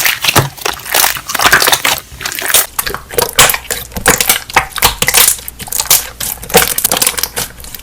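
Air-bubble popping: a fast, irregular run of crackling pops and clicks, several a second.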